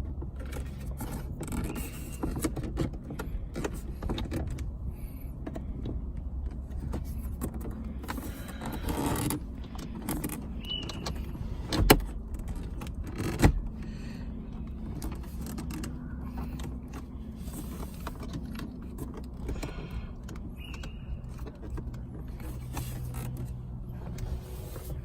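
A plastic trim tool working at a car's dash radio trim panel, with scraping and small clicks. Around the middle come two sharp snaps about a second and a half apart, typical of the panel's retaining clips popping loose.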